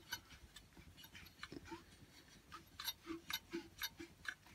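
Honda GX25 four-stroke engine turned over slowly by hand, its internals giving faint, irregular clicks and ticks as the crank is rotated to check the freshly set valve clearances.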